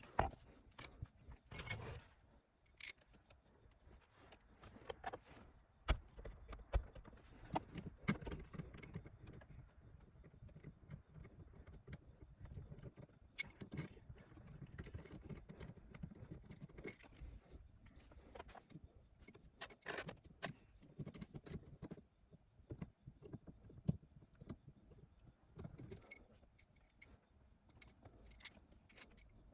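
Small metal objects clinking and rattling irregularly, with a few sharper knocks.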